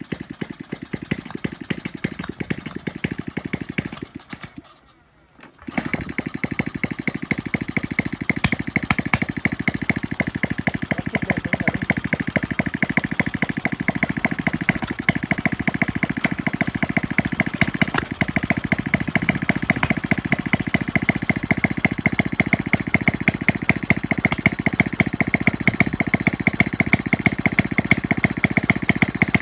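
Small Honda engine of a winch running with a rapid, even firing beat. Rainwater has got into it. It cuts out for about a second roughly five seconds in, then picks back up and runs steadily.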